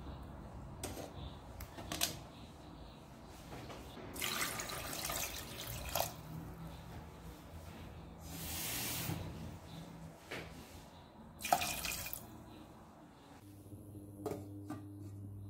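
Water poured into a stainless steel pot of raw pork pieces in three splashing pours, with a few knocks against the pot in between. Near the end a steady low hum starts as the induction cooktop comes on.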